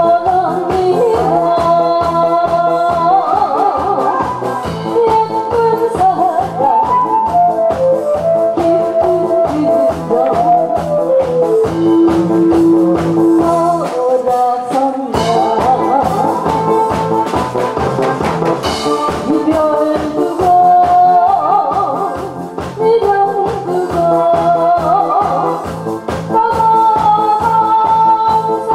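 A woman singing a song into a handheld microphone over backing music with a steady beat.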